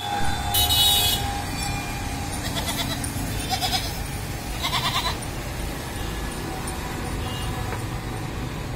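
Young goats bleating a few times with short, quavering calls over the steady rumble of passing road traffic.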